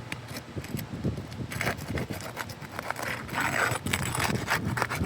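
Irregular scraping and light knocks on asphalt roof shingles, getting busier from about a second and a half in.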